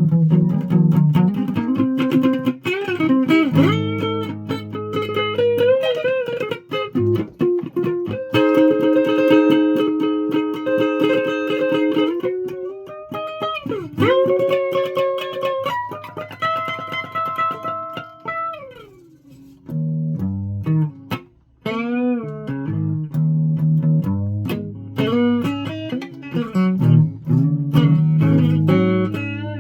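Guitar playing: held notes with bends, slides and vibrato over lower notes, with a brief pause near the middle.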